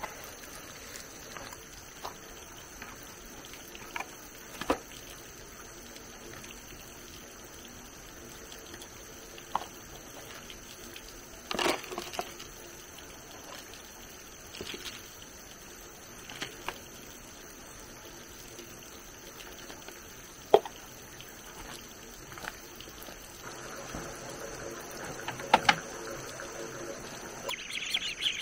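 Shredded plant material being scooped by hand and dropped into a plastic bucket: scattered soft rustles and patters with a few sharper knocks. Near the end, ducklings start peeping.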